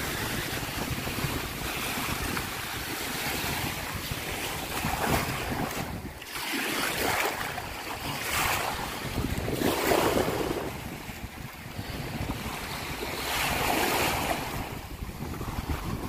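Small Atlantic waves breaking at the water's edge and washing up the sand, the wash swelling several times. Wind rumbles on the microphone underneath.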